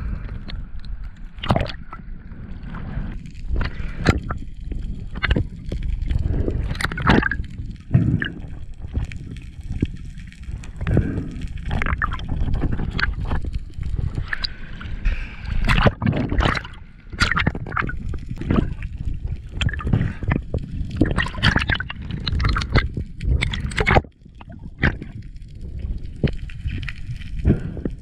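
Underwater water noise: a steady low rumble of moving water, broken by frequent sharp knocks and rubs as a diver handles a speared greater amberjack and swims with it.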